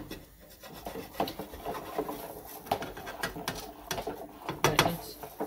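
Metal slotted spatula scraping and tapping against a nonstick frying pan as a pancake is worked loose and flipped: a run of short scrapes and clicks, loudest near the end.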